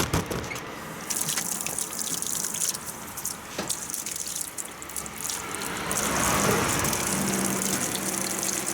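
Tap water running into a sink, starting about a second in and running steadily.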